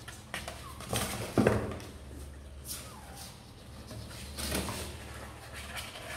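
Young kittens in a cardboard box giving a few thin, falling mews while their claws scrabble and knock against the cardboard, loudest in a bump about a second and a half in. A steady low hum runs underneath.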